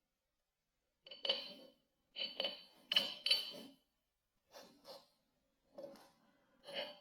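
Kinetic sand being squished by hand in about six short strokes, starting about a second in, the loudest close together around three seconds in.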